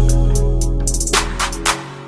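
Background music with held bass notes and drum hits, the bass fading out near the end.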